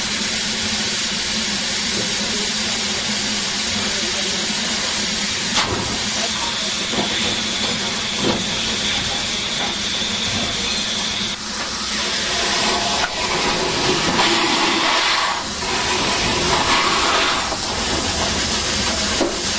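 Steam locomotive hissing steadily, rising about two-thirds of the way through into louder surges of steam blowing from the Polish 0-8-0T tank engine's cylinder drain cocks as it moves, with a couple of light metallic knocks earlier.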